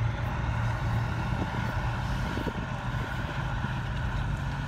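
Idling truck engine: a steady low drone.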